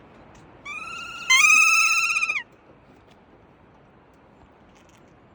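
Kea giving one loud, wavering, high-pitched call of nearly two seconds, jumping up in pitch partway through and falling away at the end.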